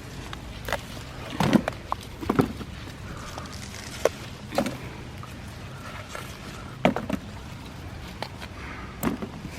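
Bell peppers being picked by hand: several irregular sharp snaps of stems breaking and peppers being handled, with leaves rustling, over a low steady background rumble.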